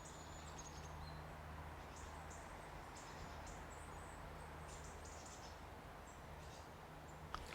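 Faint, scattered high chirps of small birds over a quiet, low steady background hum.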